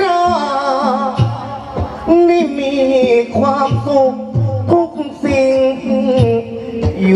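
Likay singing: the lead performer in the hero role sings a wavering, ornamented vocal line into a handheld microphone over instrumental accompaniment, with regular percussion beats.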